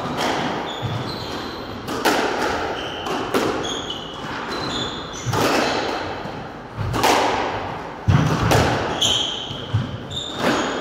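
Squash rally: the ball cracks off rackets and walls every second or two, each hit ringing in the echoing court. Short high squeaks of shoes on the wooden floor come between the hits.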